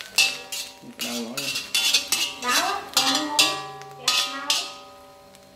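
Metal cutlery clinking against dishes, about nine sharp clinks that each ring on briefly.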